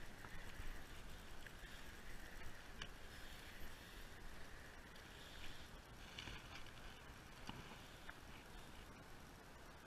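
Faint water splashing and a few soft clicks as a small fish is reeled in on a spinning rod and landed by hand, over a faint steady hiss.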